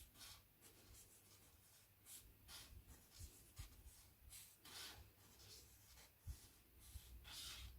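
Faint scratching of drawing strokes on printing paper, a series of short strokes with small gaps between them.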